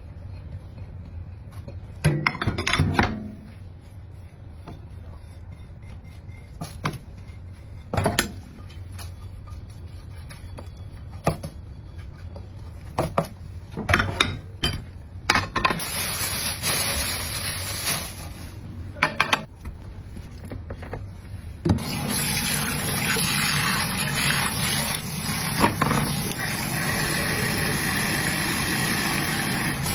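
Dishes and utensils knocking and clattering as they are handled, with scattered sharp clinks. Water from a tap runs briefly a little past the middle, then runs steadily and more loudly through the last third while the dishes are washed.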